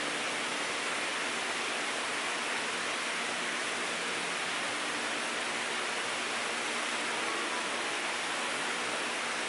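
Steady, even hiss of background noise with no distinct events.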